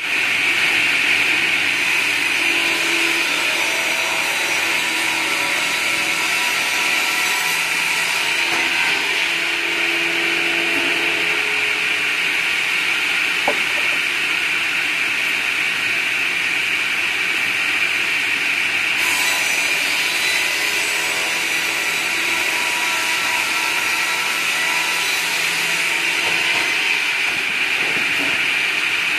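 Log sliding table circular saw running steadily, sawing through a log as it is pushed along the carriage past the blade. One short sharp click about halfway through.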